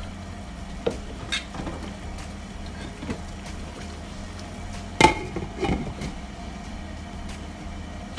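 Tomato stew simmering in an open pan with a few faint pops, then a sharp clank of cookware about five seconds in as a glass lid is set onto the pan, with a couple of lighter knocks after it. A steady low hum runs underneath.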